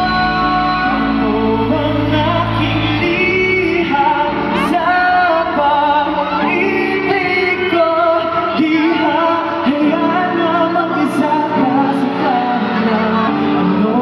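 Live pop song with singing, amplified through a venue sound system; the bass drops out about three seconds in.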